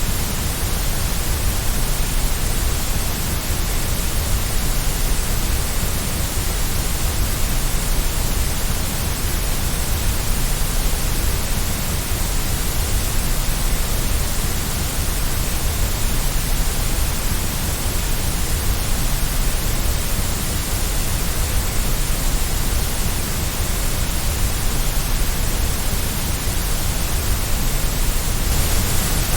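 Steady, unbroken white noise: an even hiss spread over low and high pitches, with no change in level.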